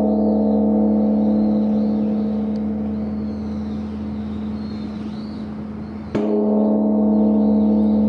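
Large bronze Korean temple bell (beomjong) ringing on with a deep, steady hum from the previous stroke that slowly fades. About six seconds in it is struck again with its wooden log striker, and a fresh low ring sustains.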